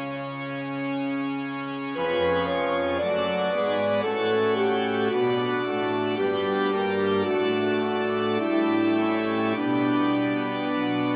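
Organ music: a held chord, then from about two seconds in a slow melody of sustained notes moving step by step over a steady low bass.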